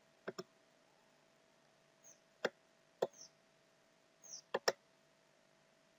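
Computer mouse clicking: a quick double-click about a third of a second in, single clicks about two and a half and three seconds in, and another double-click near the end. A faint steady hum runs underneath.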